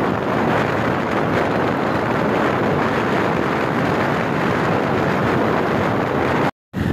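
Steady rush of wind on a phone's microphone while riding a motorcycle in traffic, mixed with engine and road noise; it cuts out for a moment near the end.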